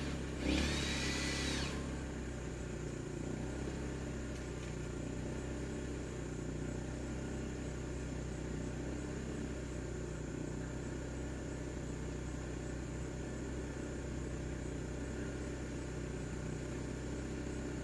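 Steady mechanical hum made of several even tones. A short, higher sound with a pitch that bends comes about a second in.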